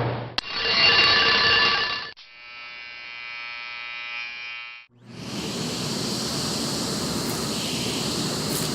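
Household appliances one after another: a steady hum stops, then after a click an alarm clock rings loudly for under two seconds. An electric shaver then buzzes steadily for about three seconds. From about five seconds in, a vacuum cleaner hose attachment runs with a broad rushing noise and a low hum, with a few sharp clicks as small debris such as paper clips is sucked up.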